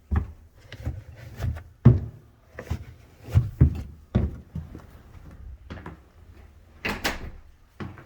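Irregular knocks and thumps of someone walking indoors and handling things, with one sharper, louder clack about seven seconds in, like a door or its latch.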